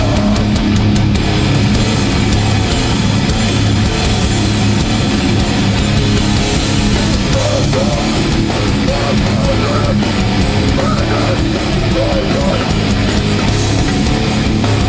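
Live hardcore band playing loud and steady: heavy distorted guitars, bass and drums with no vocals.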